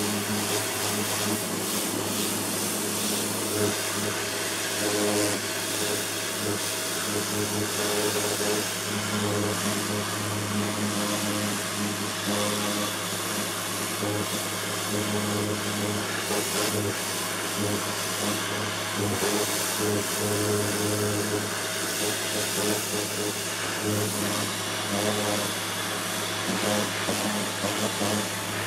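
Kärcher electric pressure washer running steadily: its motor and pump hum under the hiss of the high-pressure water jet spraying a plastic sun lounger.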